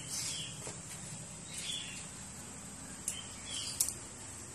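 Small birds chirping in short, scattered calls, several times, over a low steady hum.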